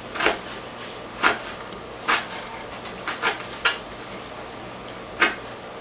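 Knife slicing fresh turmeric rhizomes, about six separate cuts knocking at uneven intervals.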